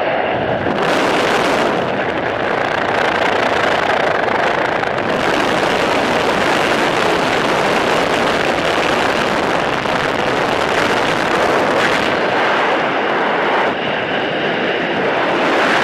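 Steady rush of wind and aircraft engine noise at the open door of a jump plane in flight, with no clear tone to it. About two seconds before the end the level dips briefly, and it carries on as freefall wind buffeting the microphone.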